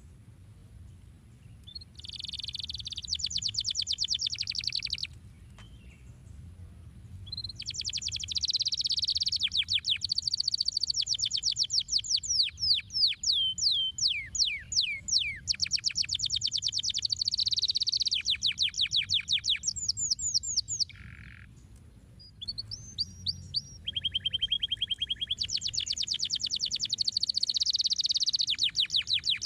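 Canary singing in long phrases of rapid trills and fast repeated notes, with quick downward sweeps between rolls. It breaks off briefly about five seconds in and again about twenty-one seconds in.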